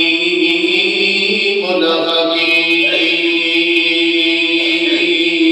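A man's voice chanting one long, nearly steady held note into a microphone and out through the sound system, in the melodic style of Islamic devotional recitation.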